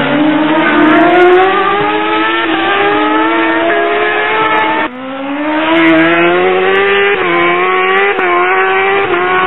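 Racing superbike engine at full throttle, its note climbing steadily. About five seconds in it drops sharply, as on an upshift, then climbs again, with a smaller dip a couple of seconds later.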